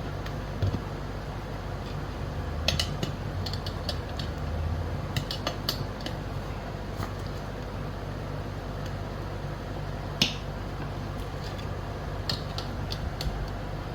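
Sharp metallic clicks and taps of tire levers against a scooter wheel rim as the tire is pried off, in scattered clusters over a steady low hum.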